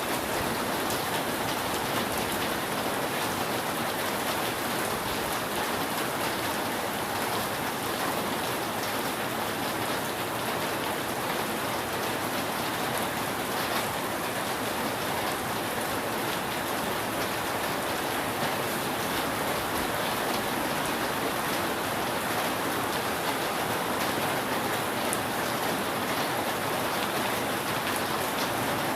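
Steady rain falling on a roof, an even, unbroken wash of drops with no thunder.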